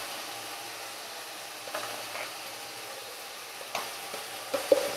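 Spiced onion, garlic and ginger paste sizzling steadily in hot oil in a kadai, with a few short clicks and scrapes of a metal spatula against the pan. The masala is being fried down (bhuna) in oil before the meat goes in.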